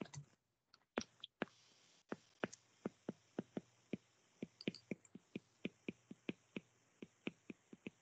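Faint, light clicks or taps, about three a second, starting about a second in.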